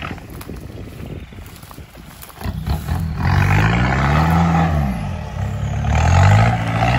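4x4 SUV engine revving hard as the vehicle pushes through tall grass, with the grass swishing against the body. It comes in about two and a half seconds in, climbs in pitch, drops back about five seconds in, then climbs again.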